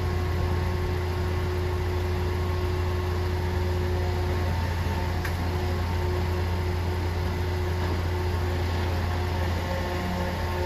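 Recycling truck's engine running steadily with its hydraulic grapple crane working: a constant low hum with a few steady held tones above it. A faint click about five seconds in.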